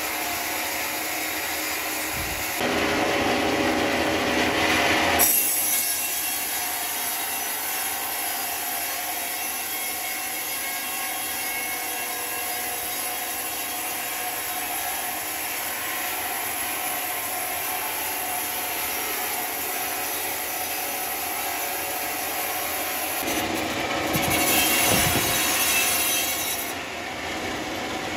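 Sawmill saw cutting through timber: a steady sawing noise that swells louder twice, for a few seconds about three seconds in and again near the end.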